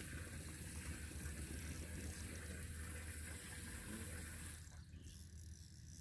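Steady rush of moving water with a low hum beneath it; the higher hiss drops away near the end.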